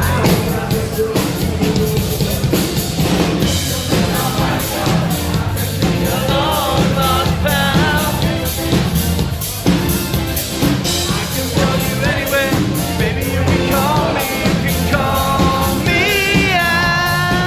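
Live rock band playing an up-tempo number: drum kit and bass keep a steady beat under a wavering lead melody line.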